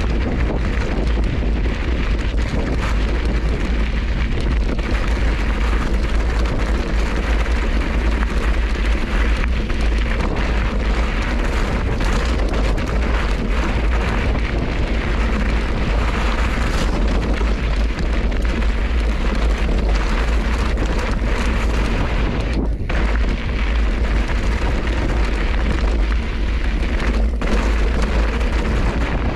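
Wind buffeting the microphone of a bike-mounted action camera, a steady loud rumble and rush, mixed with the crunch and rattle of the tyres rolling over a loose, rocky trail. The rush drops out briefly twice in the last third.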